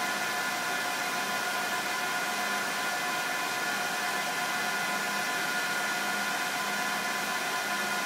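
HP ProLiant DL165 G7 rack server's cooling fans running: a steady rushing whir with a high, even whine on top.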